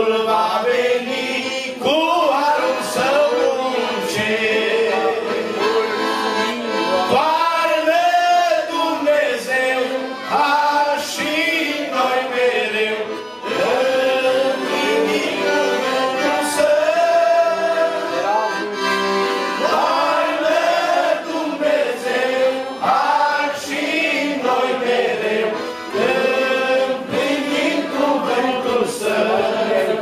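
A man singing a religious song into a microphone, accompanied by a Roncalli piano accordion.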